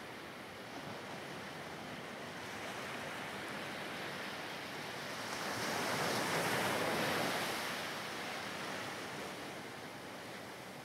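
Sea surf washing onto a sandy beach: a steady hiss of waves that swells louder for a couple of seconds in the middle.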